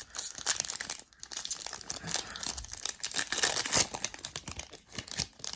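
Foil wrapper of a Prizm football card pack crinkling as it is torn open and pulled apart, with the crackle busiest about three and a half seconds in.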